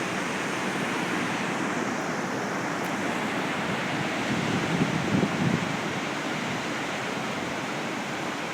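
Ocean surf washing steadily onto a beach as a continuous rush, swelling louder for a moment about five seconds in as a wave breaks.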